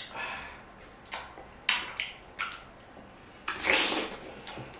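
Close-up mouth sounds of eating juicy dragon fruit: a few short wet smacks, then a longer noisy slurp about three and a half seconds in, the loudest sound.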